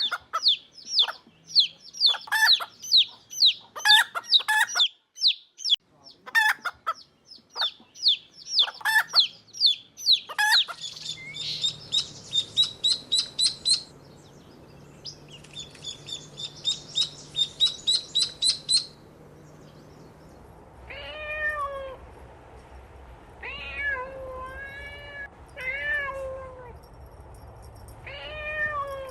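Rapid high-pitched chirping and squeaking for most of the first two-thirds, then a kitten meowing several times near the end.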